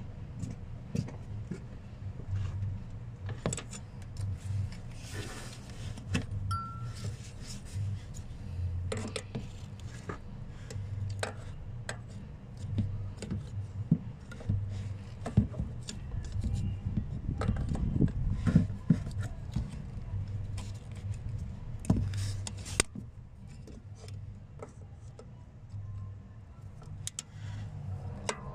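Scattered metallic clinks and taps of hand tools and parts in a car's engine bay as the purge valve, its connector and hoses are handled, over a low steady hum.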